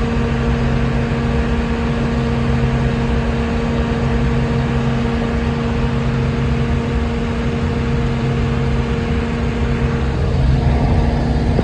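Combine harvester running steadily: a constant machine drone with a steady hum that changes about ten seconds in.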